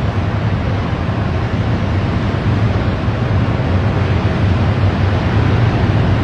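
Steady, loud machinery rumble with a strong low hum from a cargo ship's self-unloading conveyor system in the unloading tunnel.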